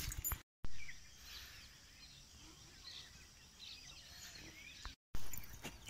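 Faint open-air morning ambience with a few distant birds chirping. The sound drops out completely for a moment twice.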